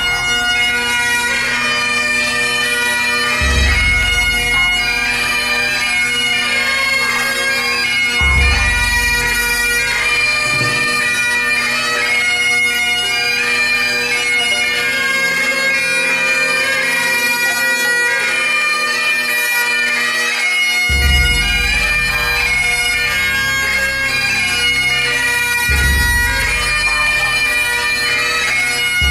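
Great Highland bagpipes, played by two pipers, sounding a tune over their steady drones.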